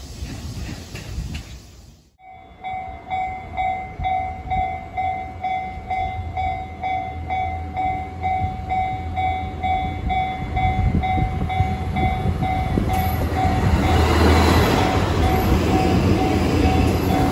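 Japanese level-crossing warning bell dinging steadily, about two to three dings a second. From about two-thirds of the way in, a train approaches and passes the crossing at speed, and its wheel and running noise grows loud over the bell.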